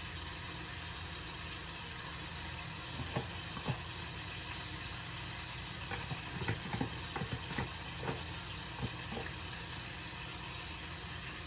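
Meat browning in a pan on the stove, sizzling steadily. A few light clicks and scrapes come in the middle.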